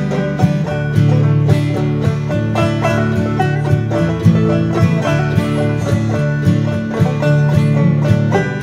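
Background music: an upbeat bluegrass tune led by picked banjo, with guitar.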